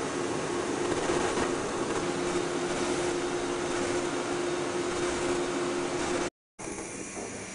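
JR East 185 series electric train standing at a platform, its onboard equipment giving a steady hum over an even rushing noise. The sound cuts out for a split second near the end.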